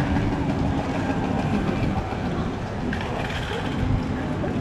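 Busy city street noise: a steady low rumble of traffic.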